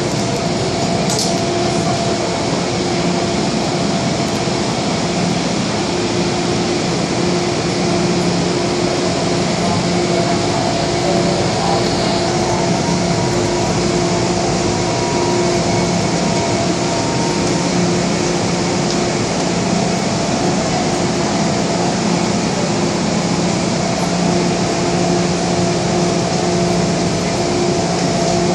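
Steady hum of an MTR M-Train standing at an underground platform with its doors open, with several held tones over an even hiss from its auxiliary and air-conditioning equipment.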